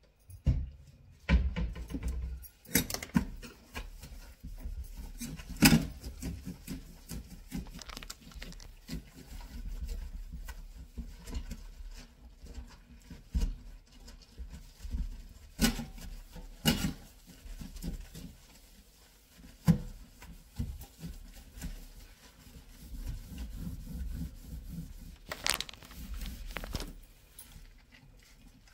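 Scrubbing a stainless steel kitchen sink with a sponge: irregular rubbing noise with sharp knocks on the metal several times.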